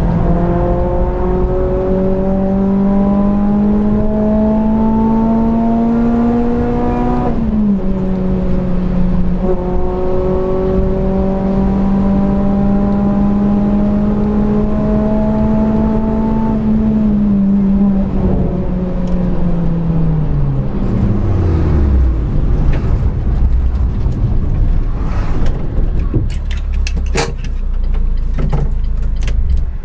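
Car engine heard from inside the cabin, pulling with rising pitch and shifting up about seven seconds in, then holding a steady speed before falling away as the driver lifts off. A few sharp knocks come near the end.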